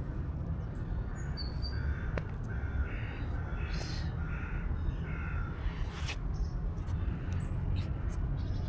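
A crow cawing in a quick series of about five short calls, with a few sharp clicks and a steady low rumble underneath.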